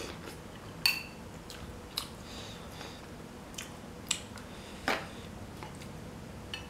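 Tableware noises during a meal: a few separate sharp clinks of a spoon against a glass bowl, the loudest about a second in with a short ring, and a duller knock near the end.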